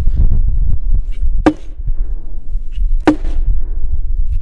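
Two heavy sledgehammer blows on an ash log, about a second and a half apart, with a sharp crack on each strike. This is how ash is pounded to loosen its growth rings into splints for basketmaking.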